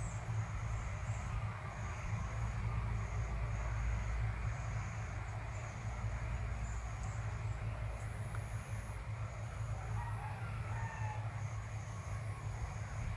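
Outdoor ambience dominated by a steady low rumble of wind or handling noise on the microphone, with faint bird calls in the background.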